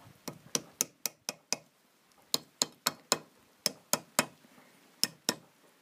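Light metal-on-metal hammer taps, about fifteen in quick groups of two to six, as a metal dust shield is tapped onto the steering knuckle of a Lada Oka's front hub around a new wheel bearing.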